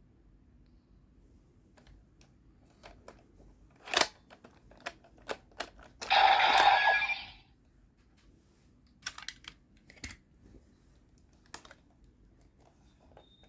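Plastic clicks and snaps from a bootleg Zero-One Driver toy belt being handled, its buttons and parts clicking at irregular intervals. About six seconds in there is one loud burst lasting a little over a second, with a few clicks before and after.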